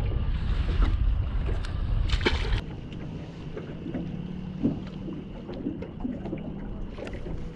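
Wind buffeting the microphone, cutting off about two and a half seconds in. After that, choppy water slapping against the small boat's hull, with a low steady hum underneath.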